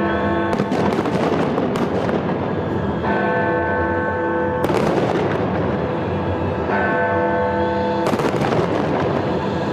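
Big Ben, the great hour bell, striking midnight: a bell stroke rings on from the start and two more strokes come about 3 s and 7 s in, each ringing on until the next. Fireworks bang and crackle throughout.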